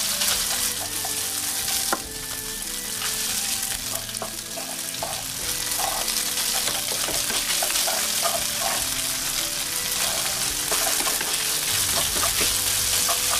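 Thin slices of raw beef sizzling in hot oil in a non-stick wok, stir-fried with a wooden spatula that scrapes and taps against the pan.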